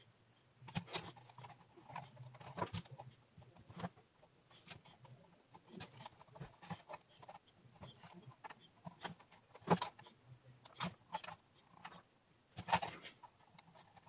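Faint, irregular clicks and taps of small tools and hands working on a hand-wired micro-switch keypad board.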